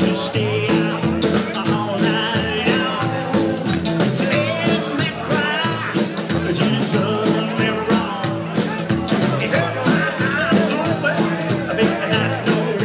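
Live rock-and-roll band playing: electric guitar, upright bass and drums keeping a steady beat, with a man singing lead.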